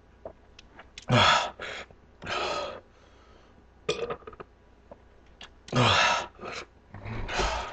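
A man gasping and breathing out hard in short, loud bursts, with a pause in the middle broken by a few small clicks; he is struggling through a bloating banana-and-Sprite eating challenge and his stomach is upset.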